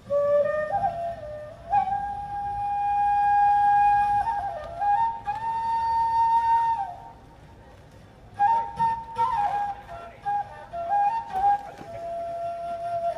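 Solo transverse flute playing a slow melody: long held notes that slide up and down between pitches, a pause of about a second, then a run of quicker ornamented notes.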